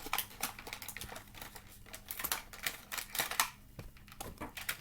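Plastic toy packaging being handled and pulled open: a run of quick clicks and crinkling rustles.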